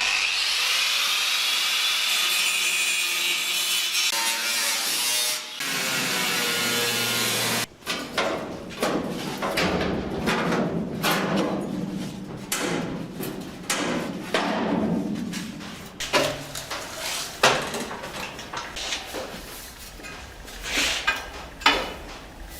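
Sheet-metal cutting on the steel rear wheel arch of a Mk2 Ford Escort shell as the old arch is cut away. A cutting tool runs steadily for about the first seven seconds, then gives way to uneven rasping strokes.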